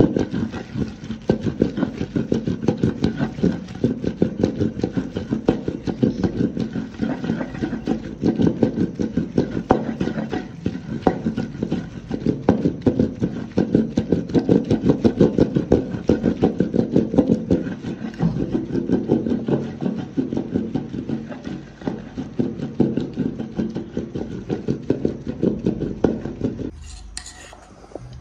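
Wooden pestle (sota) working in a kunda mortar, a quick, steady run of strokes grinding ingredients for sardai. It stops suddenly near the end.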